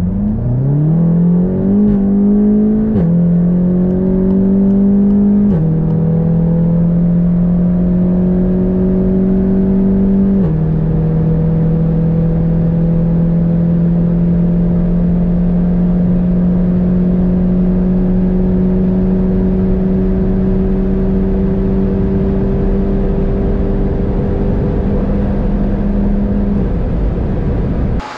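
Tuned VW Golf GTI Clubsport's EA888 turbocharged four-cylinder, fitted with a hybrid turbo and Milltek downpipe, pulling hard under full acceleration. The engine pitch climbs and drops sharply at three quick DSG upshifts in the first ten seconds, then rises slowly in a high gear before cutting off near the end.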